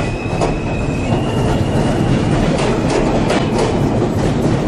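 Subway train running along the track: a steady rumble with the clickety-clack of wheels over rail joints and a faint high whine.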